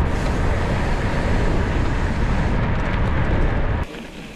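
Heavy wind rumble on the microphone of a camera riding along on a moving bicycle, cutting off abruptly near the end.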